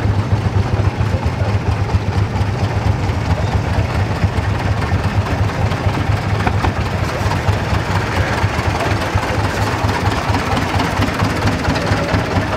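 Old tractor engine running with a steady, low, throbbing beat as the tractor drives slowly past, towing a wagon.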